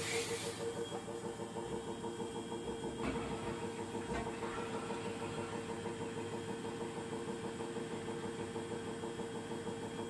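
Manfield washer-dryer's inverter motor spinning the drum on the spin cycle, above 900 rpm: a steady, even whine and hum. A short hiss comes right at the start.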